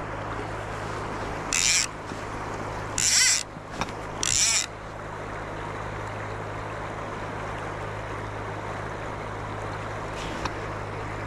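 Full river rushing steadily past a wading angler. Three short high rasps cut in about a second and a half apart in the first five seconds and are louder than the water.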